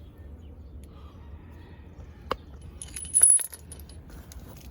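Metal hand tools clinking: a single clink about two seconds in, then a short burst of metallic jangling with a bright, high ring about a second later.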